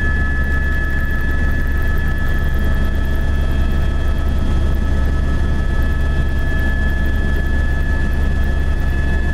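Helicopter in flight heard from inside its cabin: a loud, steady engine and rotor drone with a steady high whine running above it.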